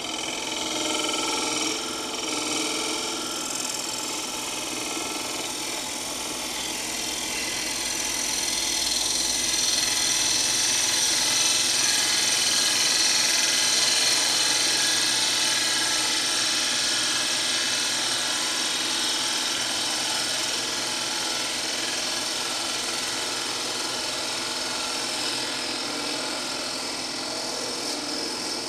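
Bent-shank hollowing tool cutting the face of a small Russian olive bowl spinning on a Laguna Revo 12/16 lathe: a continuous scraping hiss over the lathe's steady hum, swelling through the middle of the cut and easing off later.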